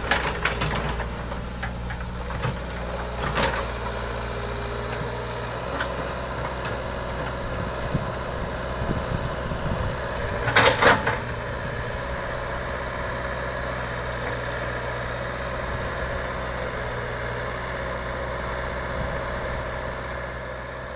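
Hitachi excavator's diesel engine running steadily at a low, even hum, with a few sharp knocks, the loudest cluster about ten seconds in, and the sound beginning to fade near the end.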